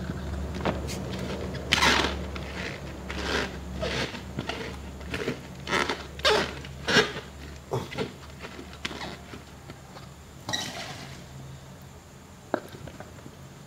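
Handfuls of sliced fresh bamboo shoots dropped into a clear plastic jar and pressed down by hand to pack them tight for pickling: a run of irregular scrapes and knocks, thickest in the first half and thinning out after about eight seconds.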